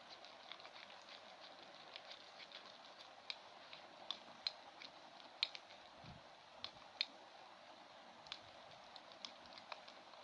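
Faint, irregular clicks and ticks of a spoon stirring sticky slime (glue mixed with detergent) in a container, over a steady hiss.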